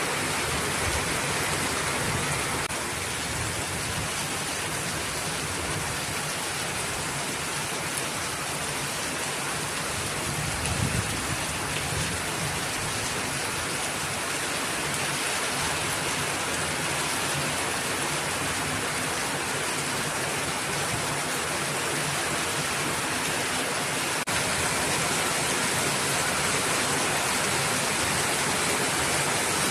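Heavy rain falling steadily, an even hiss of rain on surfaces, with a brief low thump about eleven seconds in and the rain growing slightly louder near the end.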